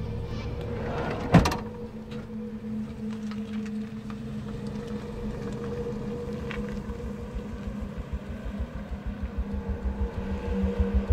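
A Toyota Sienna minivan's sliding side door slams shut once, sharply, about a second in. A steady low engine hum follows as the van pulls away.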